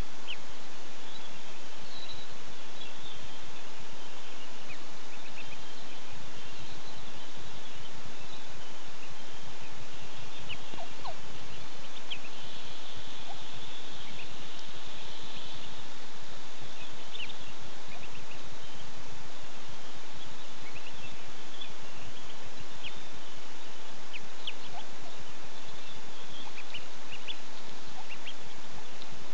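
Outdoor ambience at the nest: a steady hiss with a faint constant hum under it, and many short, high chirps of small birds scattered throughout.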